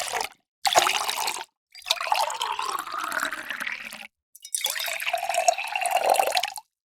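Water being poured in four separate pours with short silent gaps between them. In the longest pour, from about two to four seconds in, the pitch rises as the vessel fills; the last pour holds a steady pitch.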